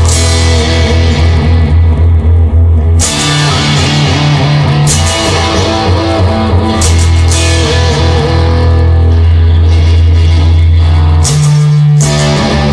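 Instrumental rock music led by guitar, with a heavy low bass line and sharp percussive hits about every four seconds; no singing yet.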